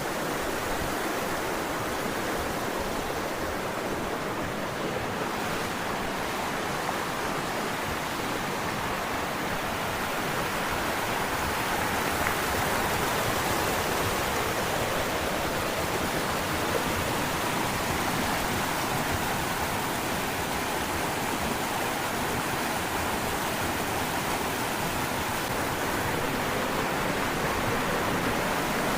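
Steady rushing of a large waterfall cascading down a rocky gorge, heard up close.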